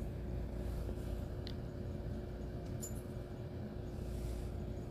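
Steady low background hum with a faint constant tone, and two faint light clicks in the middle.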